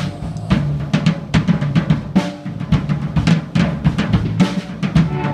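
Live band playing an instrumental passage with a busy drum kit to the fore: rapid kick, snare and cymbal hits over a steady bass line.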